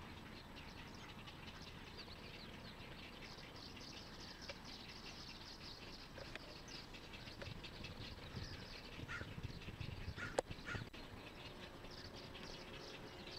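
Many short calls chattering at once from a colony of large white egrets nesting in treetops, a sound likened to chickens. A single sharp click comes a little past the middle.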